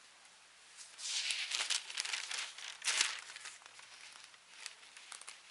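Thin Bible pages rustling as they are flipped through, close to the microphone: a busy run of paper rustles and crinkles from about a second in until halfway through, then lighter scattered page sounds.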